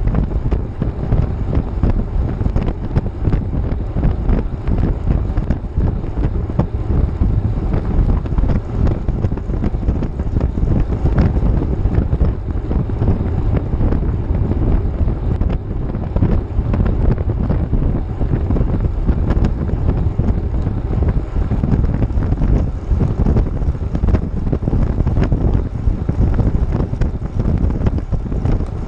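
Wind buffeting a GoPro's microphone at cycling speed: a loud, steady, low rumble.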